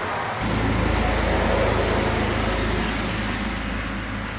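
A road vehicle passing nearby: a steady low rumble with road noise that swells about half a second in and slowly fades.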